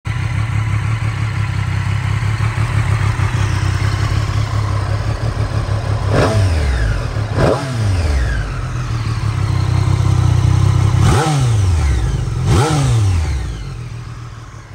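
Triumph Street Triple 765 RS's inline three-cylinder engine, fitted with an Arrow exhaust, idling steadily and blipped four times in two pairs, each a quick rise in revs that falls back to idle. It fades near the end.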